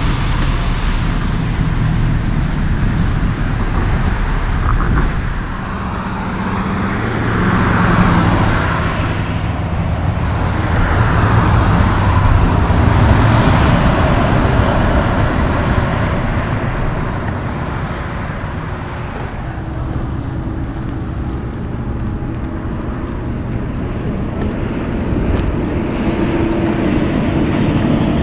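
Diesel tractor-trailers driving past on a highway: a steady engine drone under tyre and road rush that swells as a truck goes by, loudest around the middle, then eases off.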